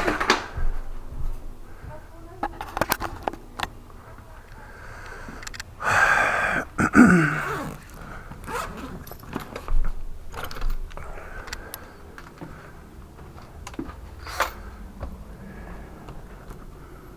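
Hand work on a door lock: scattered metal clicks, knocks and scrapes, with a louder rasping noise lasting about a second and a half, about six seconds in.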